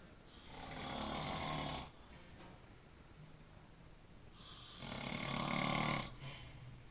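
Snoring in sleep: two long snores about four seconds apart, each growing louder and then cutting off sharply.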